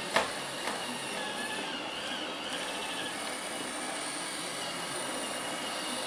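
iRobot Roomba 565 robot vacuum running steadily, its motor and brushes giving a steady whirring noise with a faint whine. A sharp knock comes just after the start, then a lighter one half a second later.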